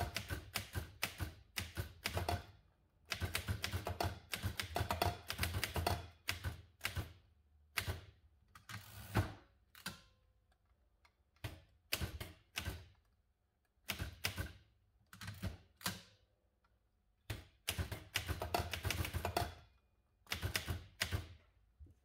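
Olivetti M20 manual typewriter being typed on: bursts of rapid key strikes, each a sharp clack, separated by short pauses between words and lines, with the carriage returned to start new lines.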